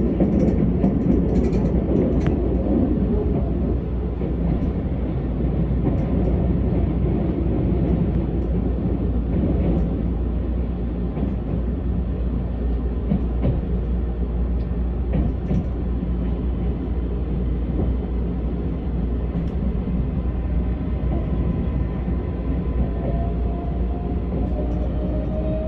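Keisei AE-series train running on the line, heard from inside the passenger car: a steady rumble with scattered light clicks from the track. A faint rising whine comes in near the end.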